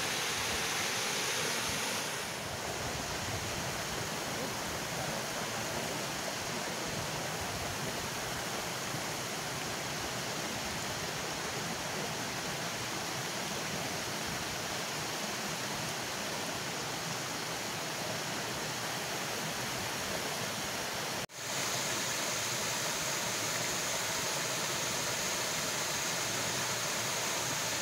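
Steady rush of water pouring over a small concrete weir into the pool below. It cuts out for an instant about three quarters of the way through, then goes on.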